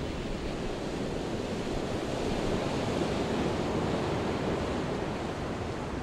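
Ocean surf: a steady wash of waves that swells a little in the middle.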